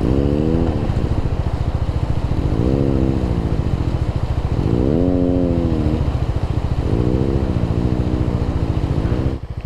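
Bajaj Dominar 400's single-cylinder engine revved in four surges, each rising then falling in pitch, with the engine dipping briefly near the end. The bike is stuck in a water crossing and is being worked free.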